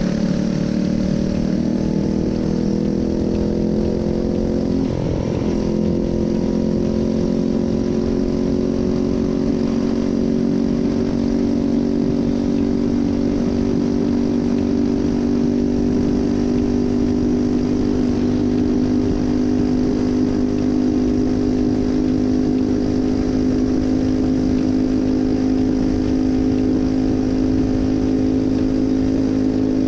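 A Phatmoto Rover motorized bicycle's 79cc four-stroke single-cylinder engine running at steady throttle, its pitch rising slightly over the first few seconds and then holding even, with a brief bump about five seconds in.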